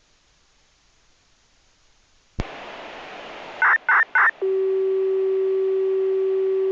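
Municipal disaster-prevention radio heard through a receiver: near silence, then a click about two and a half seconds in opens onto radio hiss. Three short high beeps follow, and then a steady lower tone begins about four and a half seconds in.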